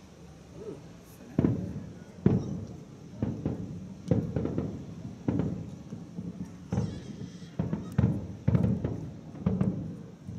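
Distant aerial firework shells bursting: a string of about a dozen deep booms, roughly one a second, each echoing away.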